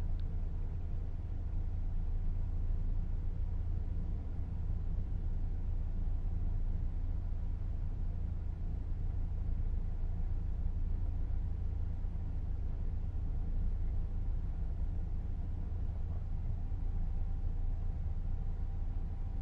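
Steady low drone of the Sunflower ferry's engines, heard inside the ship while it cruises at about 20 knots. A faint, higher steady hum joins in near the end.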